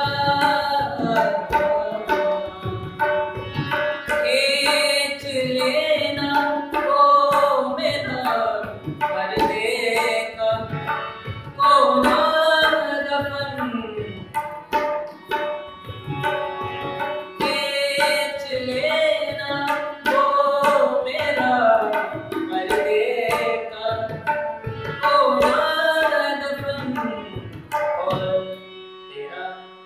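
A man sings a slow Hindustani-style melody to his own harmonium, with tabla strokes keeping the rhythm throughout. The music quietens shortly before the end.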